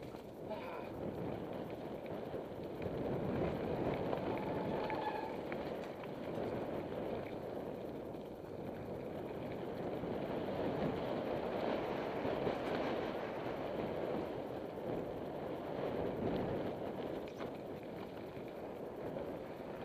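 Mountain bike riding a dirt singletrack: the tyres rolling and crunching over the dirt, with the bike rattling. A continuous rushing noise that swells and eases with the terrain.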